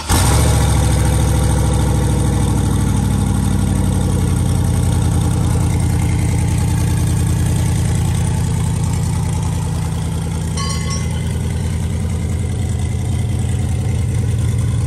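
Turbocharged Chevrolet Silverado V8 firing up and idling. The revs start high and settle down over the first few seconds into a steady, rhythmic idle.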